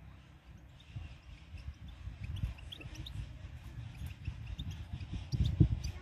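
Wind buffeting the microphone in uneven low gusts, strongest about five and a half seconds in, with small birds chirping faintly in short high notes.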